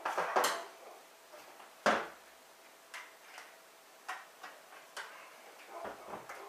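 Clicks and knocks of a Dibal G300 digital scale's plastic housing being handled: it is tipped over, its power cable is plugged into the socket underneath, and it is set back down. The sharpest knock comes about two seconds in, followed by lighter ticks.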